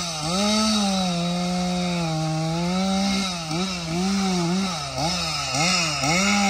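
Chainsaw cutting through a fallen pine trunk. The engine note holds fairly steady at first, then dips and recovers over and over in the second half as the saw is worked under load.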